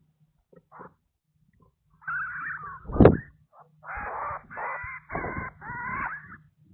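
A series of harsh, drawn-out animal calls, about half a second each, five in all, with a sharp knock about three seconds in.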